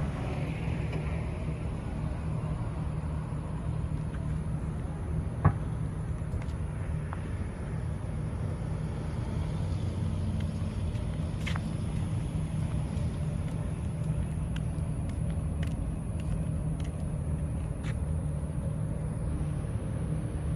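Steady low rumble of motor vehicle engines running, with one sharp click about five and a half seconds in.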